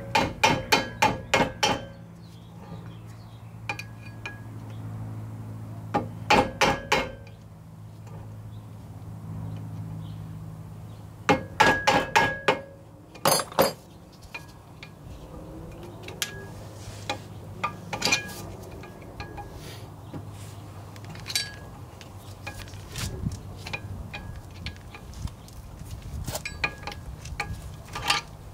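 Metal-on-metal hammer taps on a screwdriver levering the grease cap off a car's wheel hub, in quick runs of ringing strikes: about eight at the start, a handful around six seconds in, a cluster around twelve seconds, then lighter scattered taps and clicks.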